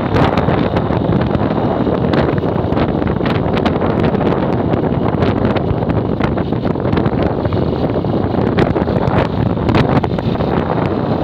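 Steady wind buffeting on the microphone of a moving vehicle, with a crackling rumble and the vehicle's engine and road noise beneath it.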